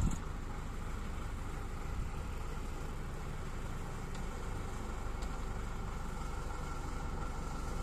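Small narrow-gauge diesel locomotive's engine running steadily as it pulls its train slowly away, a low even rumble.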